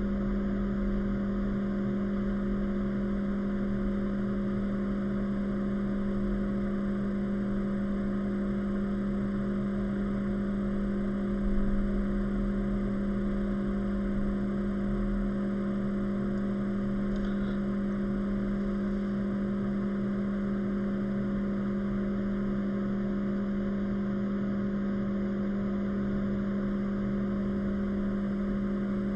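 A small motor or fan hums steadily, with a strong low tone and a few fainter tones above it over a light whir. It does not change, apart from a brief small bump about twelve seconds in.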